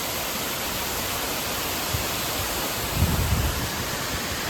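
Waterfall pouring steadily, an even rushing noise, with a brief low rumble about three seconds in.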